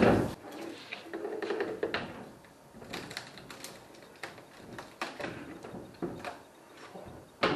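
Hand tool working a large screw out of an aluminium frame: a knock at the start, a drawn-out low creak about a second in, then scattered metal clicks and taps.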